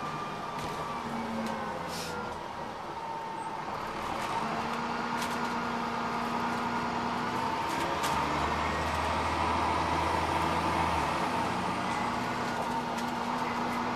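Dennis Trident double-decker bus with a Voith three-speed automatic gearbox, heard from inside the lower deck on the move: engine running with steady transmission whine and a few rattles, getting louder about four seconds in and deepest from about eight to eleven seconds in.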